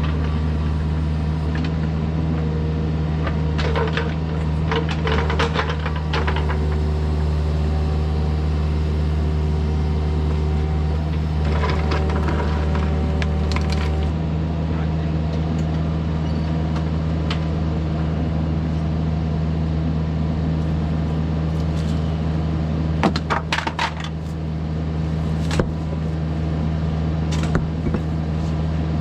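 Kubota mini excavator's diesel engine running steadily under work. A higher whine joins in from about five to fourteen seconds in. Clusters of metallic clanks and scrapes come around four, twelve and twenty-three seconds in as the bucket works the dirt.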